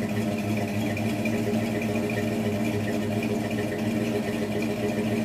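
1978 Chevrolet K5 Blazer V8 idling steadily through Sanderson cast-iron headers and a 2.5-inch exhaust, with an even, unchanging note.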